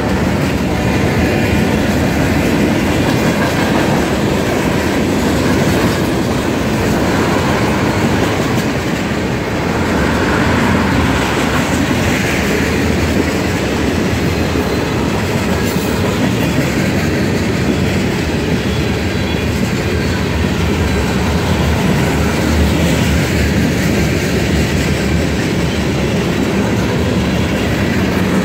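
Freight train's covered hoppers and tank cars rolling past close by: a steady rumble of steel wheels on rail with a clickety-clack over the rail joints.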